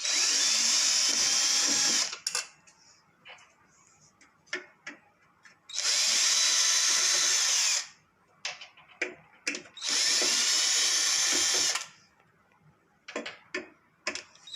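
Cordless drill-driver running in three bursts of about two seconds each, backing out the screws of a washing machine panel. Light clicks and taps come between the bursts.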